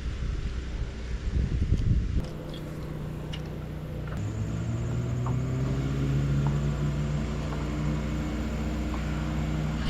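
Boat motor running steadily, its pitch rising a little about four seconds in and then holding. Uneven rumbling noise comes before it in the first two seconds.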